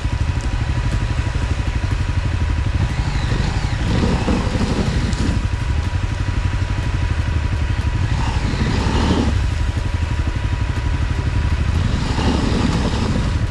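Dual-sport motorcycle engine running steadily while riding, a continuous low drone with a few louder swells along the way.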